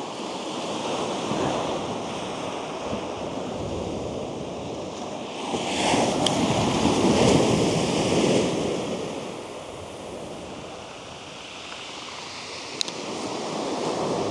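Sea waves breaking and washing up a shingle beach, swelling loudest about six to nine seconds in and building again near the end. A short sharp click comes near the end.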